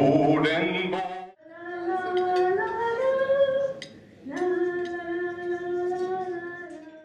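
A woman singing two long held notes, the first stepping up in pitch partway through, the second held steady for nearly three seconds.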